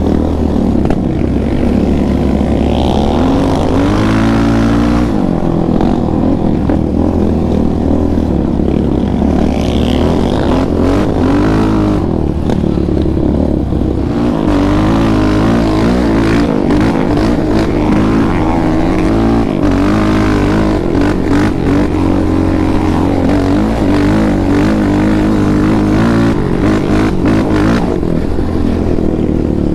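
2019 Yamaha Raptor 700R ATV's single-cylinder four-stroke engine under way on a dirt trail, its pitch climbing and dropping over and over as the throttle is worked. Scattered knocks and rattles come through in the second half.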